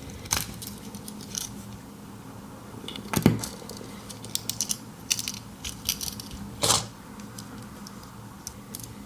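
Small metallic clicks and taps from a Victorinox Tinker pocketknife being handled, scattered irregularly, the sharpest about three seconds in and again near seven seconds, over a faint steady low hum.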